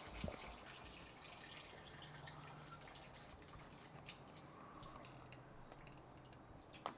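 Near silence: faint room tone with scattered small clicks and drips, a soft thump just after the start and a sharper click near the end.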